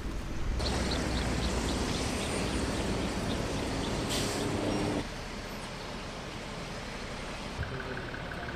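Military launcher trucks driving past, a dense engine and tyre rumble that cuts off abruptly about five seconds in. After the cut comes a quieter outdoor background with a single thump and a faint, rapidly repeated high tone near the end.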